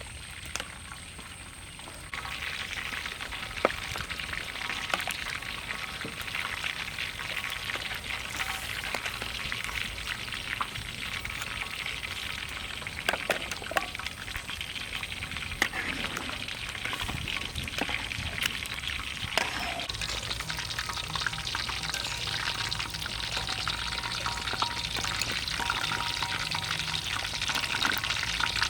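Food sizzling and crackling in hot oil in a pan, with scattered pops; the sizzle starts up about two seconds in and continues steadily.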